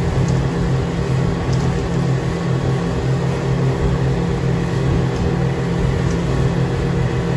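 Twin outboard motors on a speedboat running at a steady high cruise, a constant engine hum under a rush of wind and water spray from the hull cutting through the chop.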